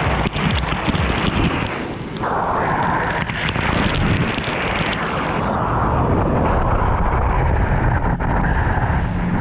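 Wind and water spray rushing loudly over the microphone on a moving 2019 Kawasaki jet ski, with its engine running low underneath.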